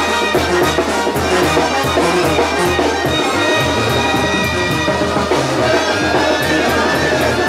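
Mexican banda brass band playing: brass over a steady percussion beat, with a low bass line stepping from note to note.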